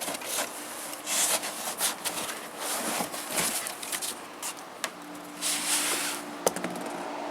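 Cardboard box and packing material rubbing and scraping as a boxed machine is lifted out, in irregular bursts, with one sharp click about six and a half seconds in.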